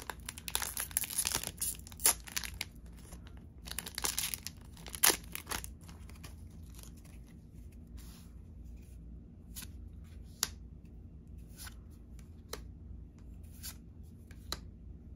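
A foil trading-card booster pack wrapper being torn open and crinkled, in two spells of dense crackling in the first five or so seconds. After that, scattered light ticks and taps as the cards are handled.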